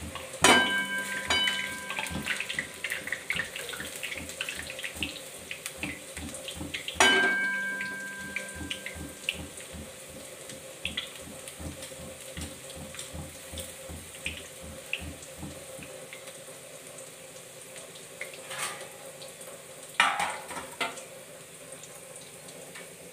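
Boondi frying: gram-flour batter rotated fast in a perforated steel ladle drips into hot fat in a kadai with a steady hiss, under rapid rhythmic scraping strokes of about three a second that stop about sixteen seconds in. Sharp metal clinks with a ringing tail sound about half a second in and at about seven seconds, with another near twenty seconds.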